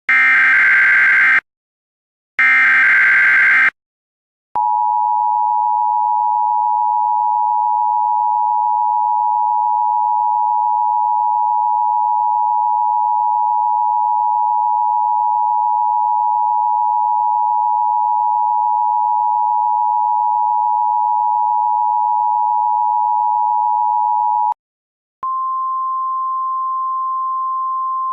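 Emergency Alert System test. First come the last two of three short bursts of the screeching digital header, a second or so each. After a brief pause the steady two-tone attention signal is held for about twenty seconds. It cuts off, and after a short gap a single, slightly higher and quieter steady tone begins.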